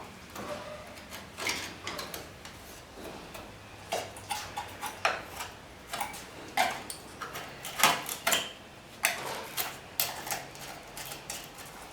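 Irregular light metal clinks and knocks from hand tools and loose pieces of car-body sheet steel being handled, a few louder knocks in the middle.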